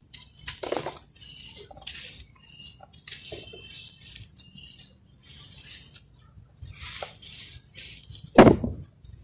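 Dry sand-cement crumbling and breaking apart in a series of short crispy crunching bursts. There is a heavier crunch about a second in and the loudest one near the end.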